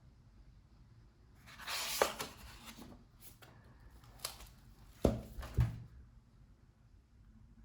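Paper rustle of a book page being turned, followed by a sharp click and two dull thumps about half a second apart as the book is handled.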